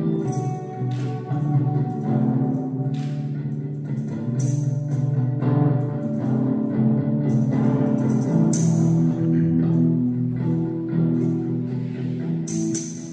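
Instrumental passage: electric guitars play sustained, ringing chords and notes, with a tambourine shaken in short jingling bursts every second or few.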